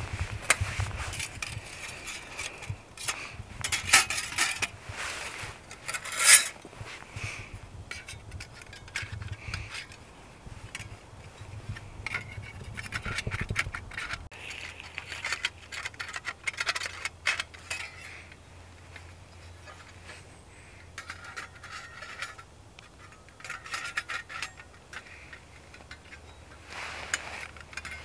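Metal plates of a Flexfire folding hobo stove clicking, clinking and scraping against each other as they are handled and unfolded, with the loudest clacks about four and six seconds in.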